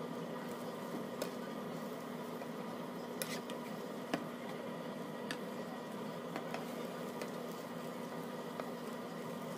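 Eggs cooking in a nonstick frying pan on an electric cooktop: a steady hum and hiss of the cooktop and frying, with scattered light clicks as a silicone slotted turner taps and scrapes the pan while the egg roll is rolled.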